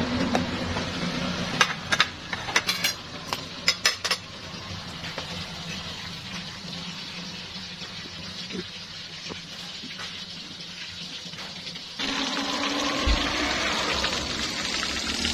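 Metal utensils clink several times against ceramic plates and a rice pot over a couple of seconds. About twelve seconds in, this gives way to a whole fish frying in oil in an aluminium wok, sizzling steadily.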